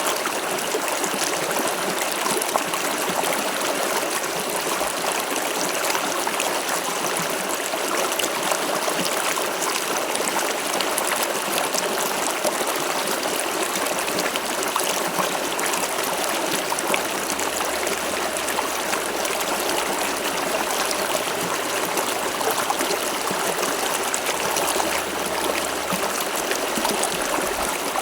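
River water flowing steadily over stones, a continuous rushing and trickling.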